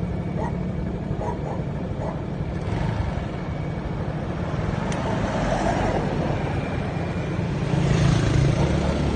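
Steady low rumble of motor-vehicle engine and tyre noise on a road, swelling louder about eight seconds in.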